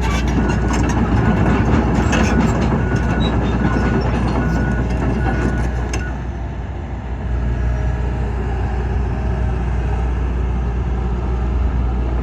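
John Deere 225D LC excavator travelling on its steel tracks: the diesel engine running steadily under clanking and squeaking track noise, with the travel alarm beeping repeatedly until about six seconds in, then the engine running on without the beeps.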